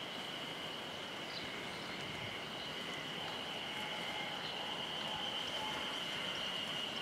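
A steady high-pitched drone over a soft background hiss, with a few faint short chirps.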